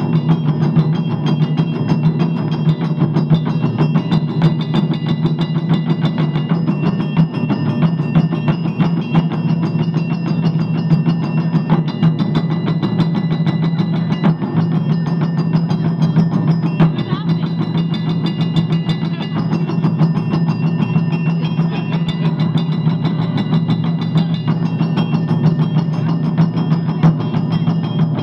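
Taiko ensemble drumming: several barrel-shaped chū-daiko drums struck with wooden sticks in a fast, unbroken stream of strokes.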